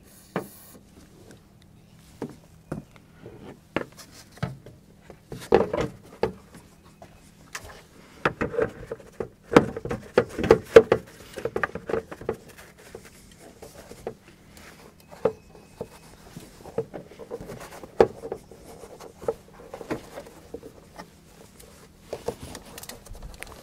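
Irregular knocks and clunks of a plastic engine air cleaner housing being pressed and worked by hand to seat its rubber grommets onto the mounting prongs, busiest around ten seconds in.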